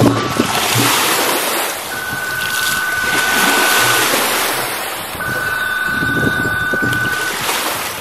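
Mobile phone ringing: two long, steady two-tone rings of about two seconds each, over the wash of small waves on the shore and wind on the microphone.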